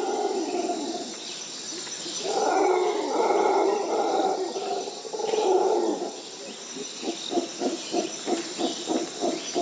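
Howler monkeys roaring: three long, hoarse roars, followed about seven seconds in by a run of short rhythmic grunts at about four a second. A steady high hiss of insects runs underneath.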